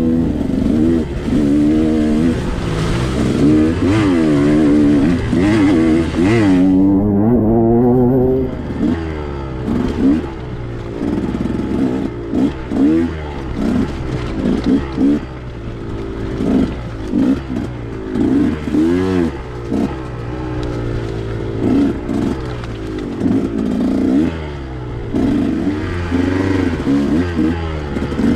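2021 KTM 125XC's 125 cc two-stroke single-cylinder engine being ridden hard on a trail, revs rising and falling as the throttle is worked. Loud, sustained revving for the first eight seconds or so, then a string of shorter throttle bursts.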